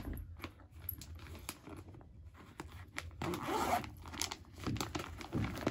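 A clear plastic suit packet being opened by hand: scattered short rasps and crinkles of plastic, then a longer zip-like rasp a little past halfway and another shortly before the end.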